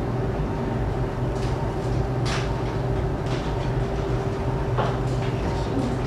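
Operating-room equipment running with a steady hum, with a few short clicks and brief hisses about one second apart.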